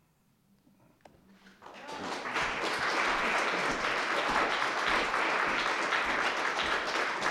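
Audience applauding. After a short hush, the clapping starts about a second and a half in, swells quickly and then holds steady.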